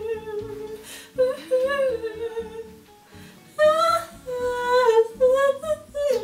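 A woman humming a slow melody of a song, in phrases with a short pause about halfway and louder phrases after it, over soft background guitar music.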